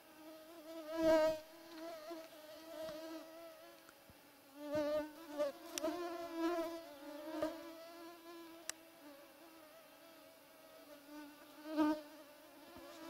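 Mosquitoes whining close to the microphone: a wavering buzzing hum that swells and fades as they fly near. It is loudest about a second in, again around the middle, and near the end.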